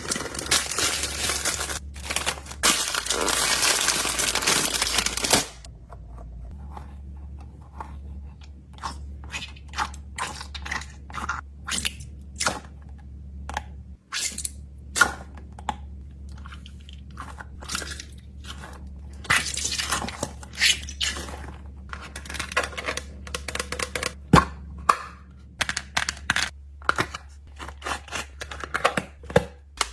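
Packing sounds: several seconds of continuous crinkling and rustling of packaging, then a long run of sharp taps and clicks of small items being handled and set down, with short bursts of crinkling between them.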